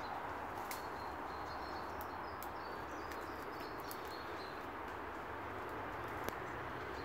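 Quiet woodland ambience with faint, scattered crackles of footsteps on dry twigs and leaf litter, and one sharper snap about six seconds in.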